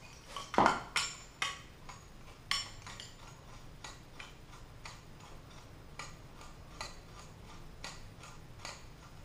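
Metal floor-lamp pole sections being screwed together by hand: a string of light metallic ticks and clicks as the threaded joint turns. A few louder clicks come in the first three seconds and fainter ones follow.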